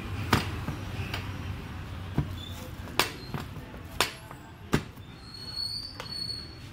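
Sharp clicks and knocks about once a second, the loudest about three and four seconds in, from handling the plastic-wrapped seat of a new scooter, over a low steady hum.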